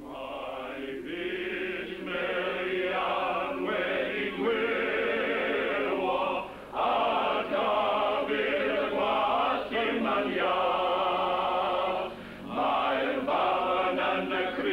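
A choir of many voices singing together in long phrases, with brief pauses for breath about six and a half and twelve seconds in.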